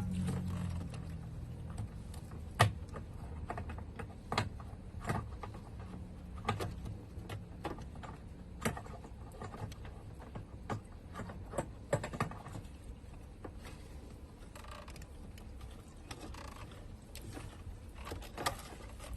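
Irregular light clicks and knocks of parts and tools being handled during fuel pump work, over a low steady hum.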